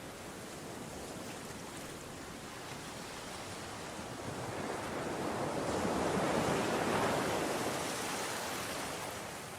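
Ocean waves washing on the shore: a steady rush of surf, with one wave swelling louder about halfway through and then easing off.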